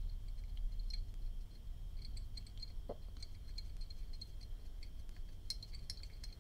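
Faint small clicks and scrapes of a vintage petrol lighter's metal insert being handled while a cotton swab scrubs soot out of its chimney, over a steady faint high whine and low hum.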